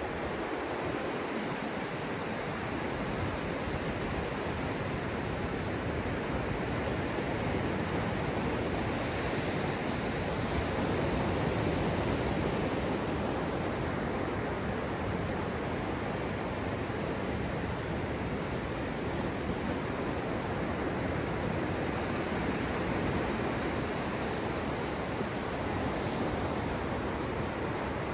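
Ocean surf: small waves breaking and washing up onto the sand in a steady rushing wash, swelling a little about ten seconds in.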